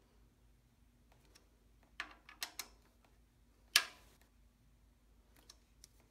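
Light metal clicks of an Allen key on the button-head bolts of an Empi valve cover: four quick clicks about two seconds in, one sharper clink just before four seconds, then a few faint ticks.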